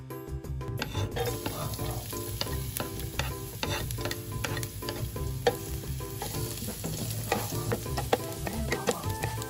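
Minced garlic sizzling in hot cooking oil in a nonstick wok, starting about a second in, with a spatula clicking and scraping against the pan as it is stirred.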